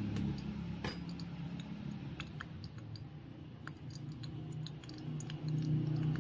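Scattered small crackles and ticks from hot oil in a miniature frying pan as freshly fried fritters drain in a stainless-steel colander above it, with one sharper click about a second in. A low steady hum runs underneath and grows louder near the end.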